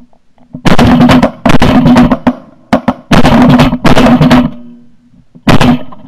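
Shotguns firing at a flock of pigeons: loud sharp bangs and knocks in three quick clusters, about a second in, near the middle, and near the end, over a faint steady hum.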